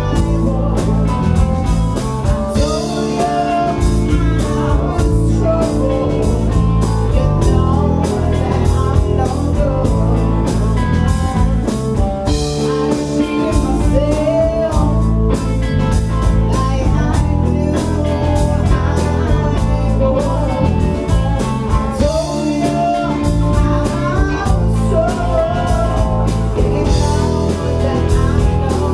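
Live blues-rock band playing: electric guitars, bass guitar and drum kit keeping a steady beat, with a singer over them.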